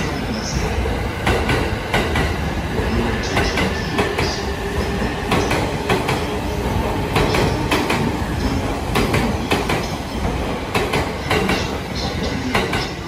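A JR East E657-series limited-express electric train rolls slowly alongside the platform as it comes in to stop, with a steady rumble and irregular wheel clicks over rail joints.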